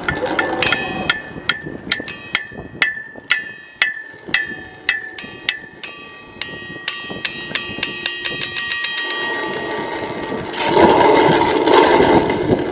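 Bronze tide bell struck over and over with wooden beaters, about three sharp strikes a second whose ringing tones overlap and hang on. After about six seconds the strikes turn softer and quicker. Near the end a loud rush of wind on the microphone takes over.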